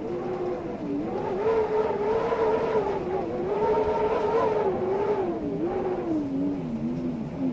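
Wind howling: a wavering, whistle-like moan that slowly rises and falls in pitch over a steady rushing hiss, sinking lower near the end.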